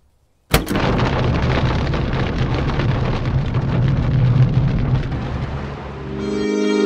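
Thunder: a sudden crack about half a second in, then a long rolling rumble that dies away after about six seconds. Music with sustained tones comes in near the end.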